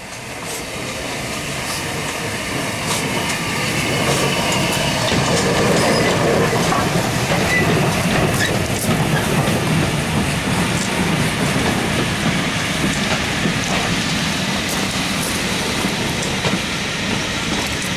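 Southern Railway Schools Class No. 926 "Repton", a three-cylinder 4-4-0 steam locomotive, running past close by, followed by its train of coaches rolling by with wheels clicking over the rail joints. The sound grows louder as the engine comes up, is loudest around six seconds in, then holds steady as the coaches pass.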